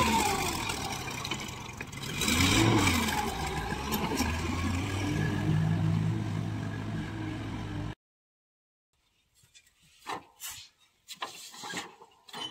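Tractor engine revving up and down, then pulling steadily, while hauling a fully loaded sand trolley through sand. It cuts off abruptly about eight seconds in, followed by a few faint scrapes and knocks.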